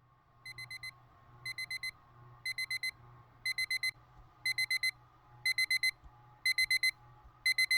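Electronic wake-up alarm beeping in quick groups of four, one group about every second, each group louder than the last.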